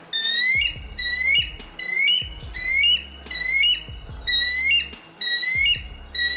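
Bald eagle calling: a regular series of high whistled notes, about one and a half a second, each rising and then stepping up to a higher pitch.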